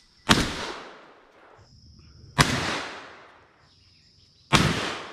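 Three shots from a Tri-Star Raptor semi-automatic 20-gauge shotgun, about two seconds apart, each echoing away for over a second.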